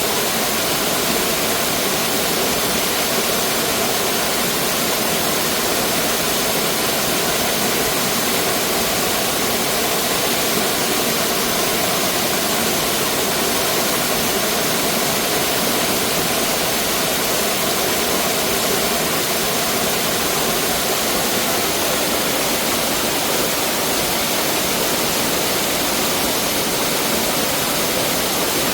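Mountain stream water rushing over rocks in a steady, unbroken roar.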